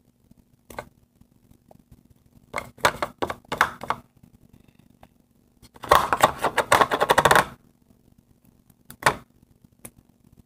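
Sticky homemade glue-and-contact-solution slime being pulled and scraped off a plastic spoon by hand: short bursts of wet clicking and crackling, the longest and loudest about six seconds in. The slime is still a little sticky.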